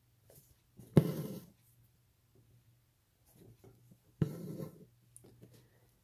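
Embroidery needle and floss going through fabric stretched taut in a hoop, twice: each a sharp tap followed by about half a second of rasping as the floss is drawn through.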